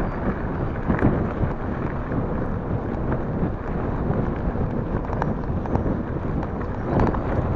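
Wind rushing over the microphone and tyres rumbling on a dirt trail while an e-bike rides along at speed, with a couple of jolts from bumps about a second in and near the end.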